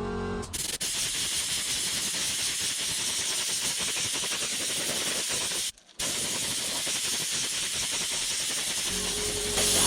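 Compressed-air spray gun spraying clear coat: a steady hiss that cuts out briefly about six seconds in, then resumes.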